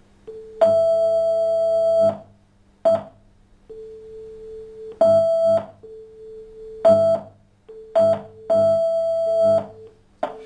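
Two synthetic tones a perfect fifth apart, a louder higher one and a fainter lower one, taking turns in stretches from a split second to about a second and a half and sometimes overlapping, played over a loudspeaker. This is a simulated conversational turn-taking exchange with completely random timing.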